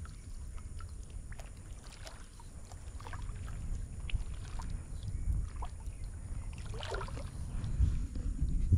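Kayak moving through shallow weedy water: faint water swishes and small splashes against the hull and paddle, the clearest about seven seconds in, over a steady low rumble.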